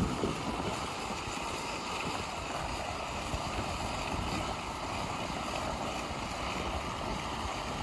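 Wind buffeting the microphone: a steady, uneven low rumble with a hiss over it, a brief gust right at the start.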